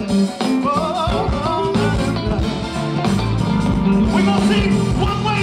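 Live gospel band playing, with bass, drums, guitar and keyboards, and a singer's voice running over it.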